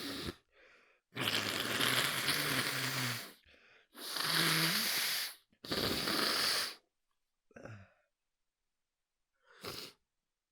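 A person blowing and snorting hard through the nose, trying to clear a tickle in it: three long, loud, hissing blasts, some with a low hum of voice in them, then two short faint breaths.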